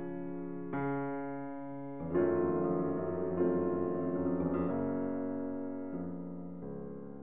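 Background music: slow, gentle piano chords, a new chord struck every second or two and left to fade.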